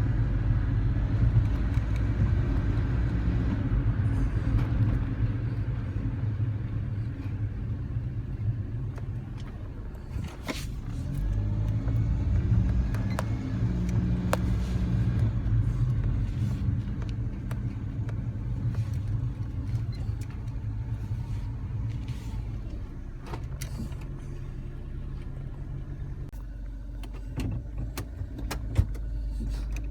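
Suzuki Carry kei truck on the move, a steady low engine and road rumble with a few light clicks; the rumble eases a little about ten seconds in and again near the end.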